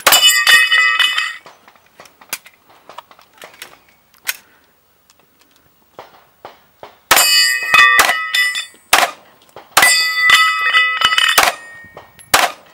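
Pistol shots at a steel star target, the struck steel plates ringing with a clang after each hit. One shot and ringing come at the start, then two quick strings of shots and clanging steel about seven and ten seconds in, and a last shot near the end.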